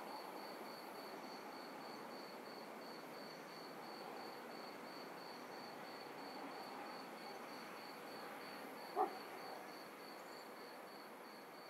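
Crickets chirping in an even pulse, about four chirps a second, over a soft ambient hiss, with one short bark about nine seconds in.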